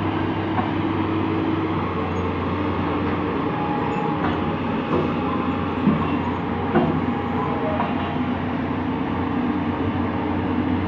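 Heavy diesel machinery running steadily at a constant engine drone, with two short metallic knocks about six and seven seconds in.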